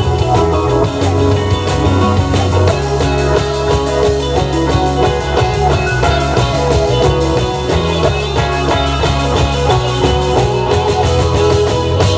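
Rock band playing live: electric guitar over a steady bass line and a regular drum beat.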